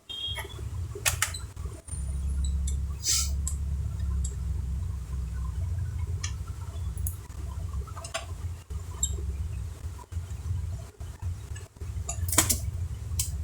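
Scattered light clicks and knocks of laptop parts being handled on a workbench, over a steady low hum.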